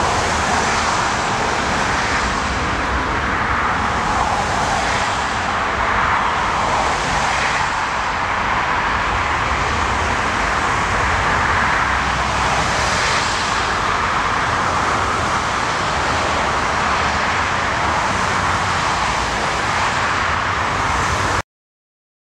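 Jet engines of a twin-engine Airbus A330 on final approach for a crosswind landing, a loud, steady rush of engine noise with gusty wind rumbling on the microphone. The sound cuts off abruptly near the end.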